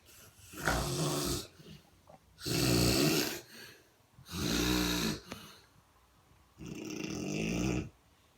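Snoring in a steady rhythm: four snores about two seconds apart, each lasting about a second.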